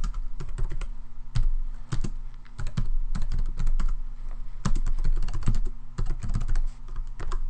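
Typing on a computer keyboard: quick, irregular runs of keystrokes entering a command, with a short pause about two and a half seconds in, over a low steady hum.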